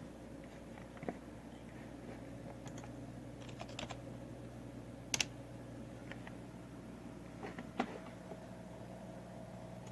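A few scattered keystrokes and taps on a computer keyboard, some single and some in quick little clusters, over a steady low hum.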